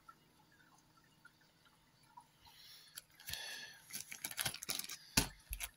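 Quiet at first, then about halfway in a plastic zip-lock bag of metal 10 mm miniatures being handled: crinkling with small clicks, and a dull thump near the end.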